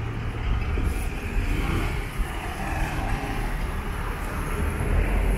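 Street traffic noise led by the steady low rumble of a stopped bus's engine running.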